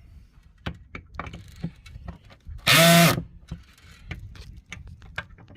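Power drill driving a screw home in one short burst a little under three seconds in, its motor pitch rising and then dropping, as it tightens the screws holding the glass retainers of a stove door. Light clicks and taps of parts being handled fill the gaps.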